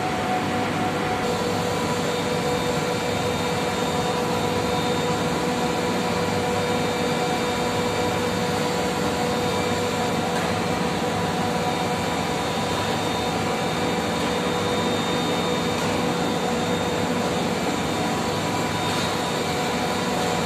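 Air-cooled chiller running: a steady rush of fan air and machine hum, with several steady whining tones over it.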